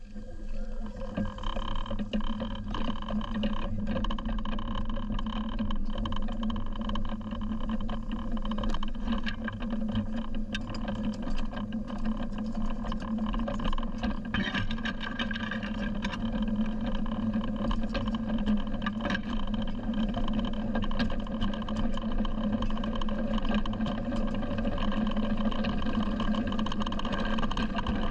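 A 7¼ inch gauge miniature railway locomotive getting under way and running along the track, a steady drone with irregular clicks throughout.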